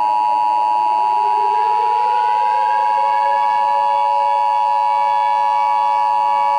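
Emergency Alert System two-tone attention signal: two close steady tones, held loud and unbroken. Beneath it a siren winds up, its pitch rising over the first few seconds and then holding steady.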